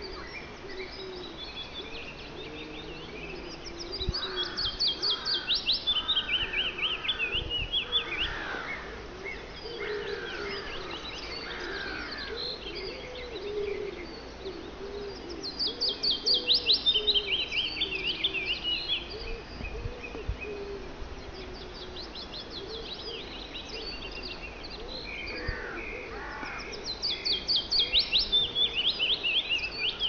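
Wood warbler singing three songs, each a fast run of high, repeated notes lasting three to four seconds. The songs come about 4 seconds in, about 16 seconds in and near the end. Other birds call faintly and lower in pitch in between.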